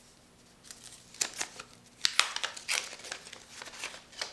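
Wax-paper wrapper of a baseball card pack crinkling and tearing as it is opened by hand, in irregular sharp crackles that begin under a second in.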